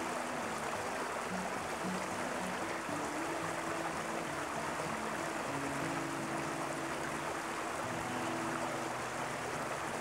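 Water of the Norbury Brook pouring over a small weir in its concrete culvert, a steady rushing noise, with soft background music of held low notes under it.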